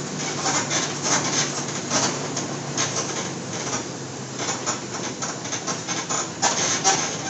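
Mercedes-Benz OF-1722 bus's diesel engine running at a steady speed while the bus drives, heard from on board, with the body and fittings rattling and knocking irregularly over the road.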